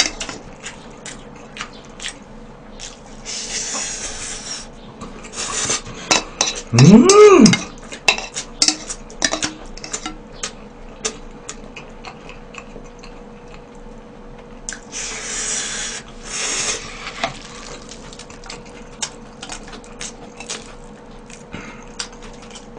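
Close-up eating sounds: chopsticks and spoon clicking against a bowl, with two long noodle slurps, one about three seconds in and one about fifteen seconds in. About seven seconds in there is one short, loud vocal sound that rises and falls in pitch, the loudest thing here.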